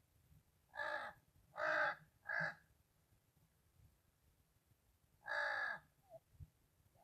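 Carrion crow cawing: three harsh caws in quick succession, then a pause and one longer caw near the end.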